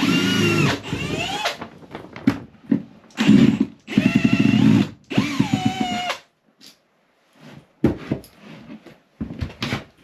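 A power drill driving screws into framing lumber, in three runs with the motor whine rising and falling in pitch as it spins up and slows. It is followed by a few faint knocks.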